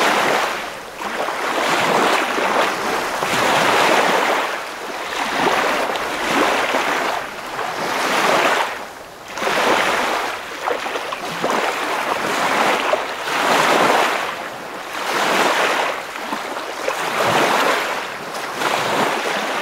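Ocean surf: waves washing in and drawing back, the hiss swelling and fading about every two seconds.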